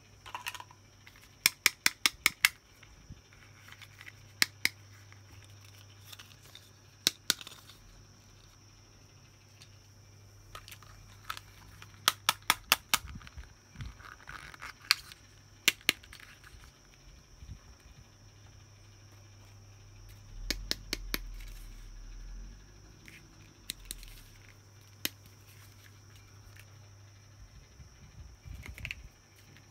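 Sharp clicks and snips of toy playset pieces and packaging being handled and unboxed. They come in quick runs of four or five, with single clicks in between, over a faint steady hum.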